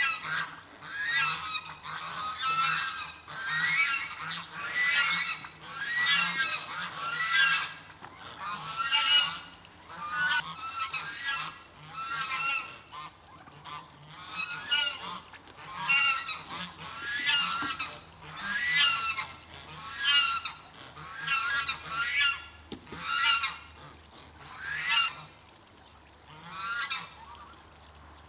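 A flock of domestic geese honking over and over, about one call a second, as they crowd around for feed; the calls thin out near the end.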